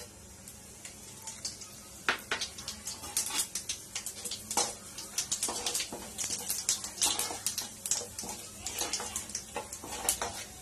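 Whole garam masala spices (cinnamon, cloves, shahjeera and mace) crackling and popping in hot oil in a kadhai, with an irregular run of sharp pops over a low sizzle. A slotted metal spoon stirs the spices.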